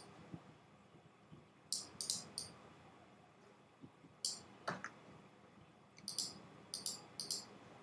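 Faint computer mouse clicks, a few at a time in small groups, made while selecting and resizing objects on screen.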